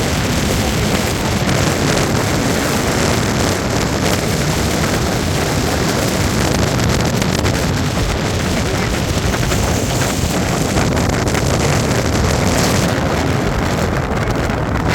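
Gale-force wind gusting at around 60–70 mph, blasting across the microphone as a loud, steady rumbling noise.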